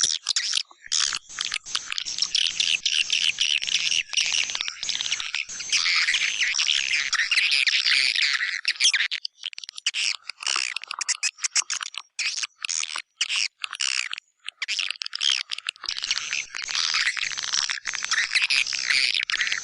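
Swiftlet lure-call recording of white-nest swiftlets: dense, high twittering and chirping of many birds, chopped by short gaps, thinning to scattered chirps about halfway through and filling in again near the end.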